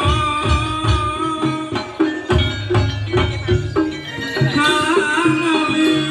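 Live jaranan music from a Javanese gamelan-style ensemble, with hand-drum strokes driving a quick rhythm under a wavering, ornamented melody line.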